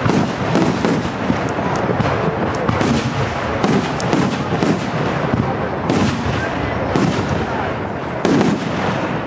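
Fireworks going off: a string of sharp bangs at irregular intervals, roughly one a second.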